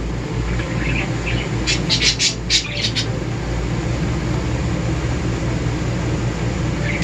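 Pet parakeets chirping and squawking in a run of short calls, mostly between about one and three seconds in, over the steady hum of an air conditioner.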